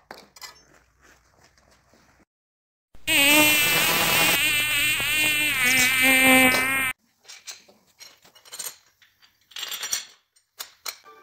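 Electric grinder working steel, a loud whine that wavers in pitch as it bites, starting abruptly about three seconds in and cutting off suddenly about four seconds later. Faint metal knocks and handling before and after it.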